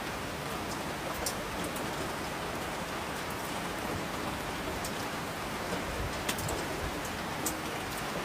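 Steady rain falling, with individual drops ticking sharply on a surface now and then.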